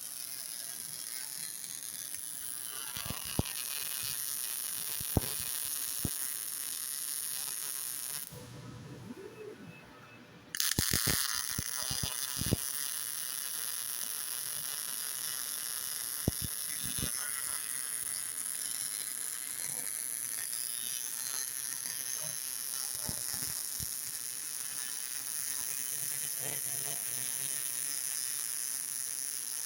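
5-axis CNC welding table running a test: a steady high hiss with scattered sharp clicks. The hiss stops for about two seconds a little before a third of the way through, then starts again.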